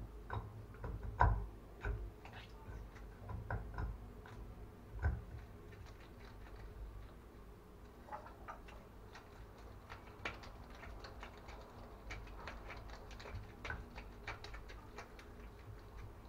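Irregular small clicks, taps and knocks of shower valve parts and hand tools being handled while a valve is greased and reassembled. There are a few heavier knocks in the first five seconds and quicker, lighter clicking later.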